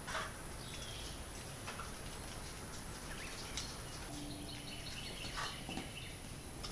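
Quiet background room tone with a steady high-pitched whine, and a few faint short chirps about halfway through.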